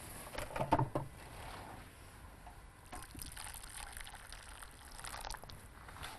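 Water poured from a metal jug into a bowl of tomato-paste marinade, a thin stream running into the liquid. A few short knocks come about a second in.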